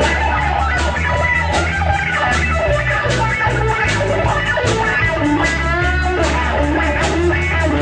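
Rock band playing: electric guitar over a steady bass line and drums, the guitar bending notes about five to six seconds in.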